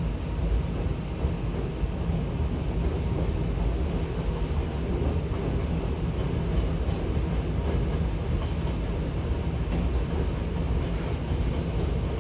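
A Hankyu Takarazuka Line train running, heard from inside the carriage: a steady low rumble.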